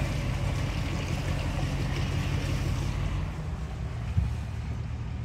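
Pickup truck driving slowly, heard from inside the cab: a steady low engine drone under an even hiss of tyre and air noise, with a small knock about four seconds in.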